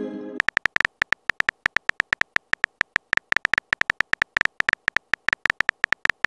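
Simulated smartphone keyboard typing: rapid key-tap clicks, about eight a second, as a text message is typed out. A short pitched chime from the message just sent fades out in the first half second.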